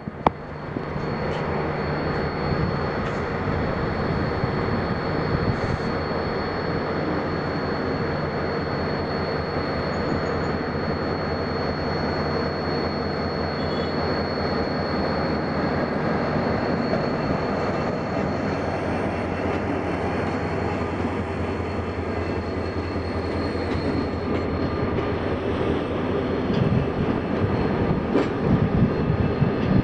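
Pakistan Railways HGMU-30 diesel-electric locomotive running light, its engine running steadily as it moves along the track, growing louder near the end as it comes alongside.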